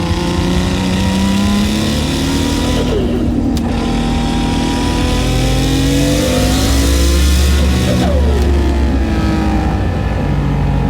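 Nissan Skyline R32 GT-R's HKS 2.8-litre stroker RB26 straight-six with a T04Z turbo, heard from inside the cabin under hard acceleration. The revs climb, drop sharply about three seconds in, climb again and drop near eight seconds, as it shifts up through the gears.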